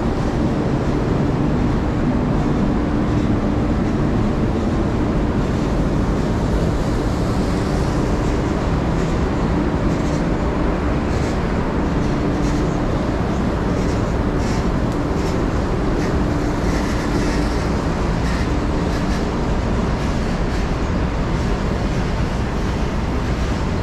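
Steady, loud rumble of heavy vehicle traffic and rain, with a low hum that comes and goes.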